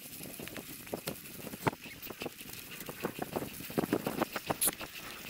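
26-inch mountain bike rolling over a rough dirt and gravel road: tyres crunching on loose stones, with many sharp clicks and rattles as the bike jolts over the bumps.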